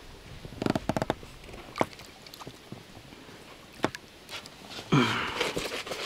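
Handling noise in an inflatable fishing boat: a cluster of sharp knocks and taps about a second in, single clicks near two and near four seconds, then a short pitched, wavering sound near the end.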